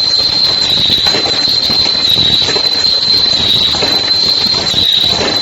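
Fully automatic face mask making machine running, a steady high-pitched whine over continuous machinery noise.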